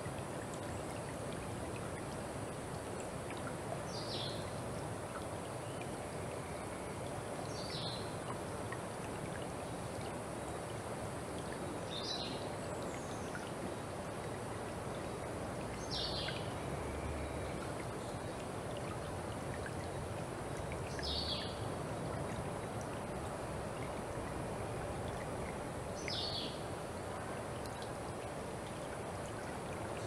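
Shallow forest creek flowing with a steady rush of water. Over it, a short high call that falls in pitch repeats about every four seconds, six times, from a small animal.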